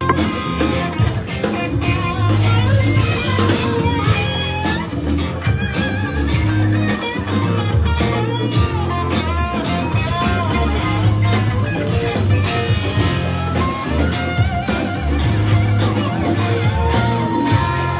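Live rock band playing an instrumental intro: electric guitar lead lines with bent notes over bass guitar and drums, with a long held, bending guitar note near the end.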